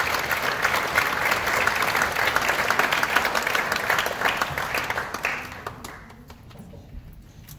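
Audience applauding, the clapping dying away to a few scattered claps about six seconds in.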